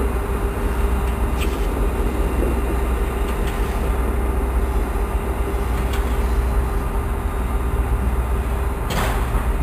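Pair of Metra EMD F40PH-2 diesel locomotives running light, their two-stroke V16 prime movers droning steadily with a constant tone over a deep rumble. A few short clicks come from the rails, the sharpest near the end as the units pass close by.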